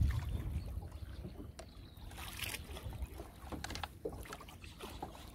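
Handling noises from a small boat as a fishing net is paid out into the river: scattered light knocks and splashes over a low rumble that eases off after the first second.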